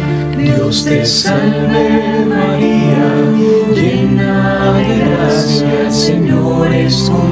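A group of voices singing slowly in Spanish, holding long notes that shift in pitch every second or so, with sung words: part of a chanted rosary prayer.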